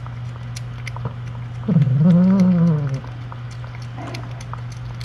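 Mother cat eating wet canned food from a metal bowl, with small wet clicks of chewing and lapping, over a steady low hum. About two seconds in comes one low, drawn-out cat call, a little over a second long, that rises and then falls in pitch.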